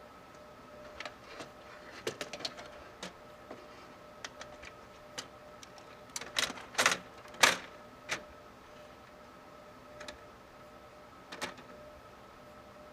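Scattered clicks and knocks of computer parts being handled at the case, with the loudest few clustered about seven seconds in, over a faint steady hum.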